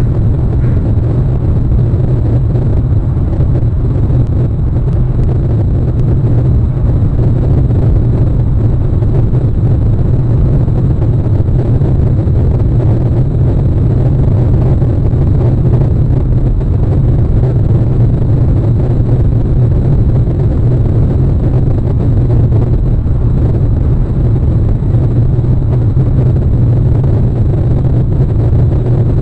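Steady, loud low rumble that does not change, with a weaker hiss above it.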